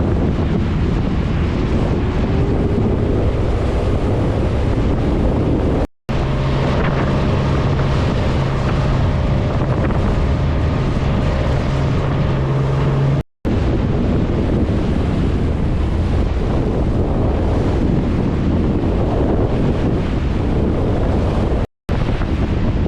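Heavy wind buffeting the microphone, with sea noise underneath, broken by sudden cuts about six, thirteen and twenty-two seconds in. A steady low hum runs through the middle shot.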